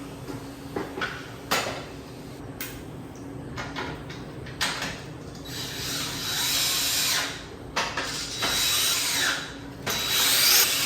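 Handling knocks and clicks, then a power drill running in three short bursts, as if driving screws or bolts to secure the miter saw stand's parts.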